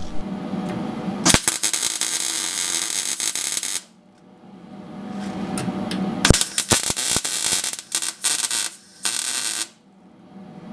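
Gas-shielded MIG wire welder arc buzzing and crackling as steel reinforcement plates are tack-welded to a car's rear subframe mounts: three separate bursts, the second one stuttering, with short pauses between them.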